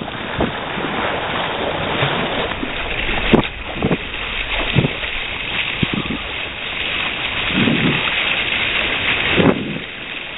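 Wind rushing over the microphone on a kayak at sea, with short watery splashes every second or two.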